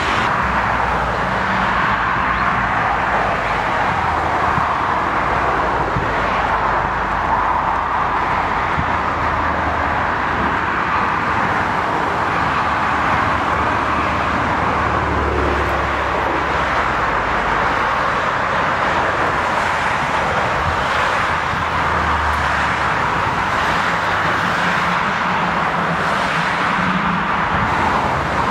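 Airliner turbofan engines running as a steady roar of noise, with an uneven low rumble from wind on the microphone.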